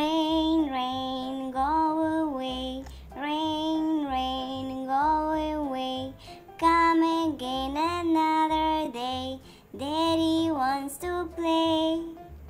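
Nursery-rhyme backing song: a high, child-like voice sings a melody in short held phrases over a light accompaniment with a steady low beat.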